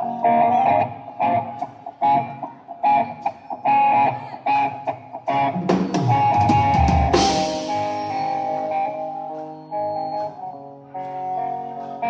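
Live rock band playing without vocals: electric guitar picking a repeating melody over a drum kit. A drum fill leads into a cymbal crash about seven seconds in, after which the guitar notes ring on.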